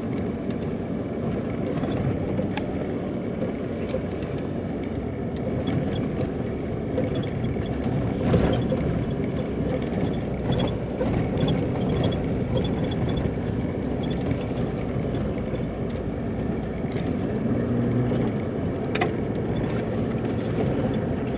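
Vehicle driving on a gravel dirt road, heard from inside the cab: a steady rumble of tyres and engine, with a few sharp clicks.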